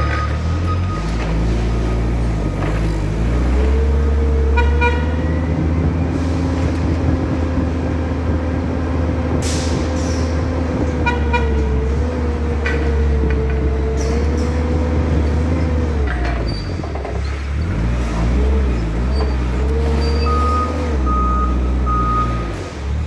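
Forklift running and driving: a steady low rumble with a wavering whine that comes and goes with travel, a few short ticks, and a steady high beep sounding for about two seconds near the end.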